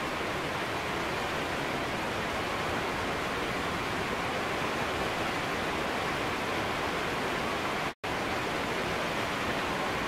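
Wind blowing through trees: a steady, even noise that drops out for an instant about eight seconds in.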